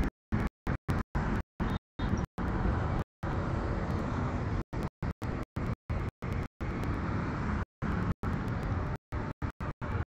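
Steady background noise like road traffic, cut over and over by sudden dropouts to total silence, irregularly and often several times a second.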